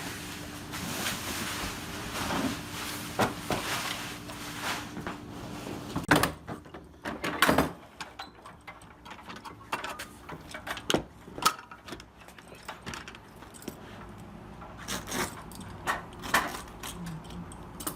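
Carpet installation work: for about six seconds a steady noisy hum, then scattered sharp knocks and thumps at irregular intervals.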